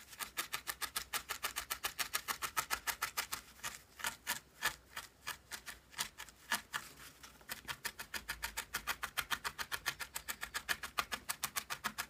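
A three-needle felting tool stabbing repeatedly through wool into a foam pad: quick, crisp ticks at about seven a second, with a couple of short pauses near the middle.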